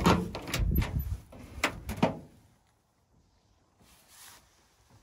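Steel cab door of a 1959 Studebaker Scotsman pickup being opened: several sharp clicks and knocks from the latch and door over the first two seconds, with low thuds.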